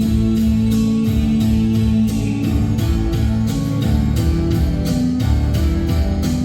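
Band playing an instrumental passage between sung lines: guitars over a steady beat, with a note held for about the first two seconds before the chords move on.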